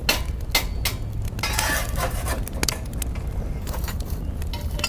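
Several sharp metal clinks and a short scrape about a second and a half in, over a steady low rumble.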